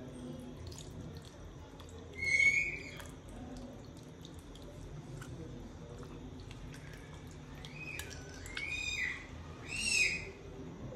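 A bird calling: one call about two seconds in, then a run of several arching calls, each rising and falling, from about seven to ten seconds.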